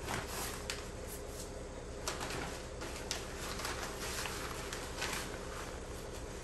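Synthetic roofing felt rustling and crinkling in short bursts as it is folded and pressed by hand into a floor joist bay, over a steady low hum.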